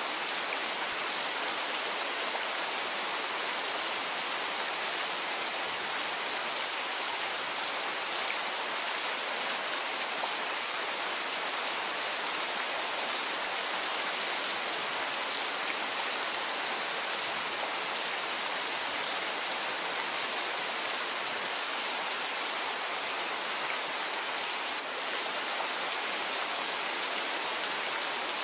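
Steady rain, an even hiss with no thunder, dipping for a moment once near the end.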